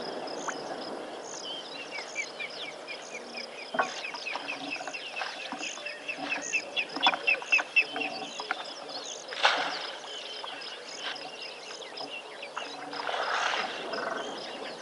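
Wild birds calling, with a rapid run of short repeated chirps for several seconds and a faint high note repeating throughout. There is a short harsh burst about nine and a half seconds in and a longer one near the end.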